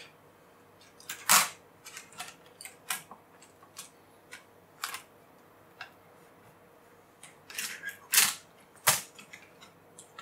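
Irregular plastic clicks and taps as a laptop keyboard is handled and seated back into the plastic chassis of a Fujitsu Siemens LifeBook E8010. The loudest clicks come about a second in and twice near the end.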